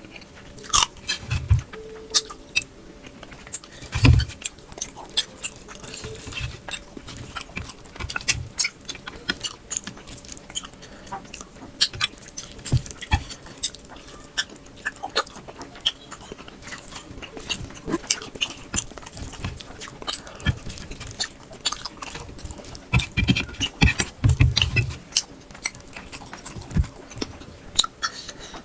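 Close-up chewing and lip-smacking of a person eating rice and curry: many short, irregular mouth clicks with a few louder low thuds.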